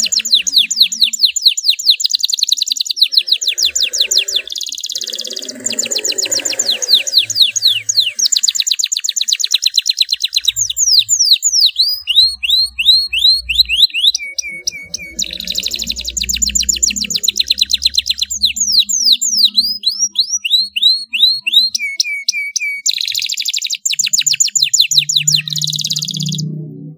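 Domestic canary singing a long, loud song of fast rolling trills, broken by runs of slower sweeping whistled notes. The song stops just before the end as music comes in.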